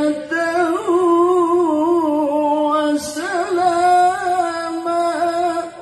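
Male qari reciting the Quran in the melodic tilawah style, holding long ornamented notes with a wavering pitch, with a brief break about three seconds in.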